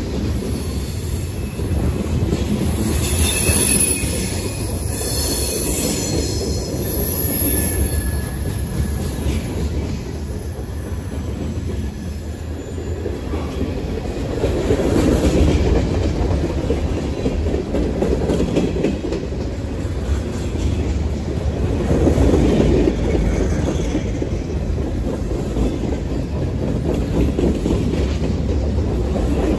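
Cars of a CSX manifest freight train rolling past close by: a steady rumble and clatter of steel wheels on the rails that swells and eases as the cars go by. High-pitched wheel squeal sounds over it for several seconds near the start.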